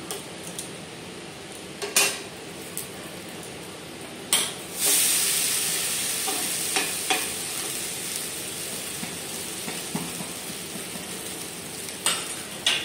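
Wooden and plastic spatulas knock and scrape against a nonstick pan as a thick semolina-and-potato pancake is flipped. About five seconds in, the wet batter side lands on the hot pan with a knock and sizzles loudly, the sizzle slowly fading.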